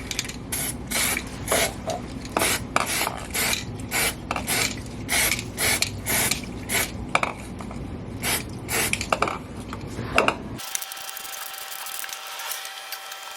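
Aerosol spray can being shaken, its mixing ball rattling hard, about two shakes a second, stopping suddenly about ten and a half seconds in.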